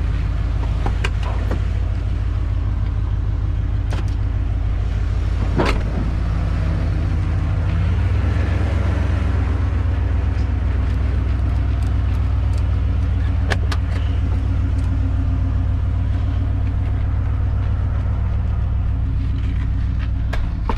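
Truck engine idling steadily; its note shifts and grows a little louder about eight seconds in. A few sharp clicks and knocks sound over it.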